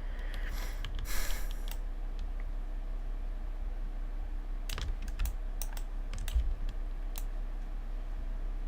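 Computer keyboard keystrokes, scattered single clicks with a quick cluster about five seconds in, over a steady low electrical hum.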